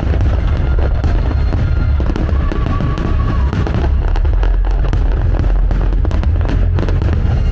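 Fireworks bursting with rapid, dense crackling and popping, over loud music with heavy bass.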